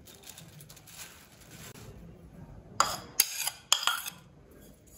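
Chopped fenugreek leaves tipped from one bowl into a ceramic bowl with a soft rustle, then three sharp clinks of crockery against crockery close together about three seconds in.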